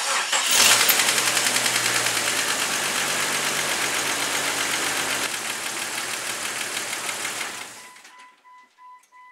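Jeep Cherokee XJ's 4.0 L straight-six starting abruptly and running, then dying away about eight seconds in. A faint pulsing beep follows near the end.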